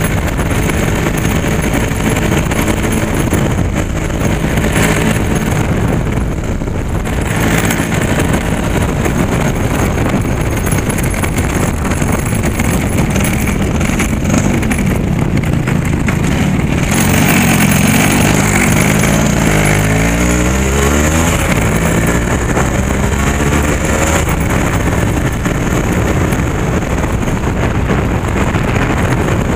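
Engine of the vehicle carrying the camera running on the move, with road and wind noise over the microphone. About twenty seconds in, the engine's pitch sweeps up and down as it changes speed.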